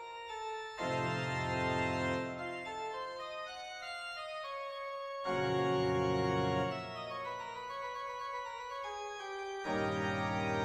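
Organ music: sustained chords, with deep bass notes coming in about a second in, again around five seconds, and near the end.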